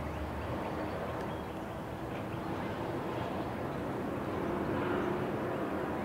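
Steady rumble of a freight train's cars rolling away on the rails, with pickup trucks driving across the level crossing; the sound grows a little louder about five seconds in.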